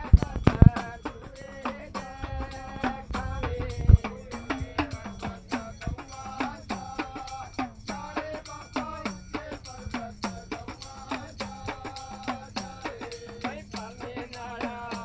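Deru, a small hourglass drum, beaten with a curved stick in a fast, steady devotional rhythm, its pitch bending up and down with the strokes. A few loud thumps stand out in the first four seconds.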